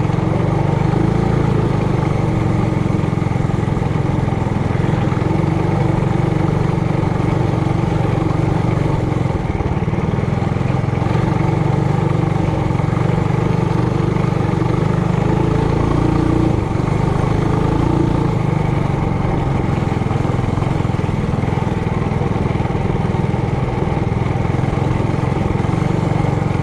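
Trailmaster Hurricane 200X mini bike's small four-stroke engine running steadily under throttle while riding.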